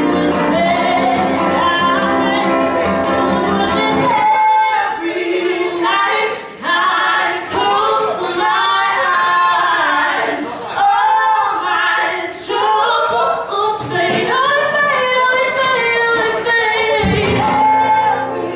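A woman singing live with acoustic guitar accompaniment. About four seconds in the guitar drops back and leaves the voice nearly alone, and it comes in again near the end.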